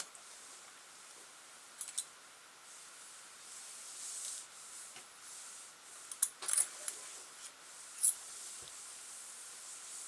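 Small metal RC parts and hand tools clicking and scraping in a few short bursts as an RC crawler's drive shaft is lined up and fitted.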